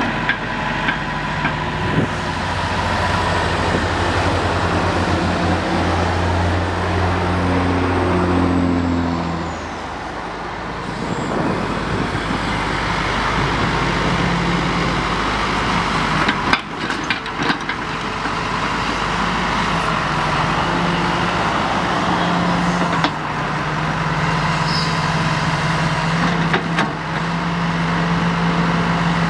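1987 John Deere 70 excavator's diesel engine running while the boom and arm are worked hydraulically, its note shifting with the load, with a few clanks a little past halfway through.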